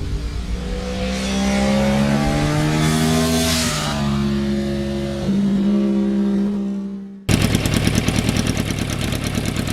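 Yamaha FZR motorcycle engine running and revving, its pitch rising and stepping between gears, then an abrupt cut about seven seconds in to the engine idling with a regular pulsing beat.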